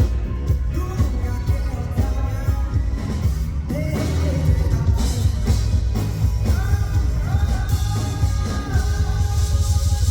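Live band playing a rock song with a male lead vocal, heavy bass and drums under the voice.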